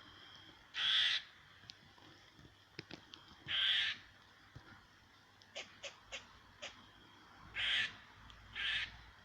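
Squirrel giving harsh, raspy alarm calls at a cat. There are four loud calls of about half a second each, spaced a few seconds apart with the last two close together, and a quick run of short chucks in the middle.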